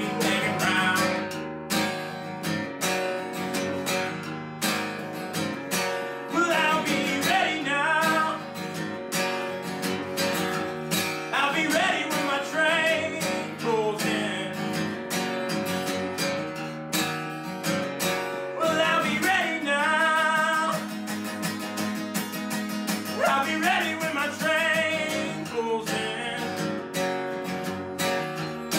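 Gibson acoustic guitar strummed and picked through an instrumental break of a blues song, with wavering, bending notes rising over the rhythm several times.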